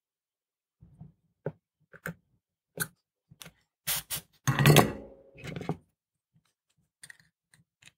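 Handling noise from a small circuit board fitted with LEDs being turned over on a workbench: a string of light clicks and taps, a louder clatter about halfway through, and a few faint ticks near the end.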